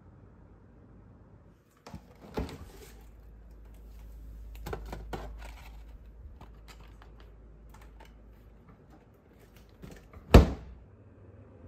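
Refrigerator door pulled open with a thud about two seconds in, followed by a low hum with rustling and light clicks as things are handled in the door shelves, then the door shut with a loud thump near the end.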